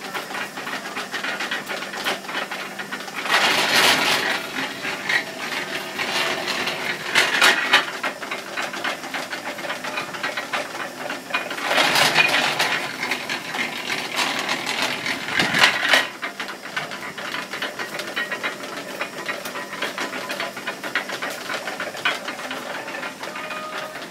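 Green sugarcane juice mill (moenda) running with a steady hum while its rollers crush sugarcane stalks. There are four louder spells of crushing noise as stalks are fed through, the last ending in a sharp crack.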